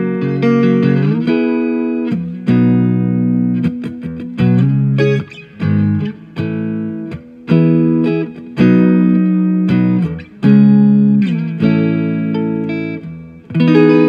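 Fender American Standard electric guitar played through a Blackstar Studio 10 6L6 tube amp with reverb: a run of strummed chords and picked notes, a new chord about every second, several left to ring.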